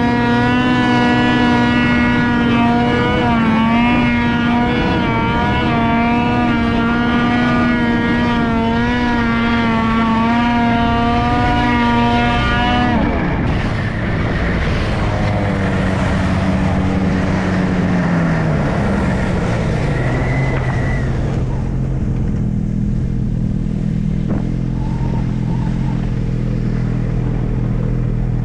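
Ski-Doo MXZ X 850 snowmobile's two-stroke twin engine running at high, steady revs with slight wavering. About halfway through the revs fall away, glide down, and settle to a low idle for the last several seconds.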